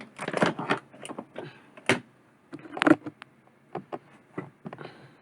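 Irregular clicks and taps of small plastic parts being handled as a repaired earphone's plastic casing is fitted closed, with a couple of sharper clicks in the middle.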